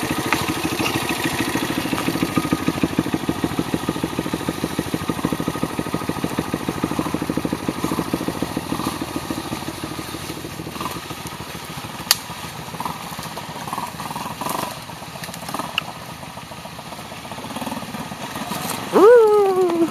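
Small single-cylinder motorcycle engine idling with an even, rapid beat that fades away over the first half. A sharp click follows, and near the end there is a short, loud pitched sound that jumps up and then slides down.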